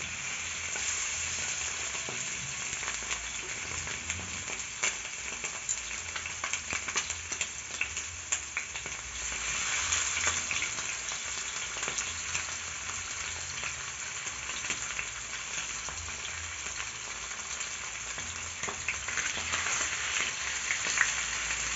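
Chicken pieces sizzling and frying in hot oil in a pan, a steady hiss with fine crackling that swells louder a couple of times.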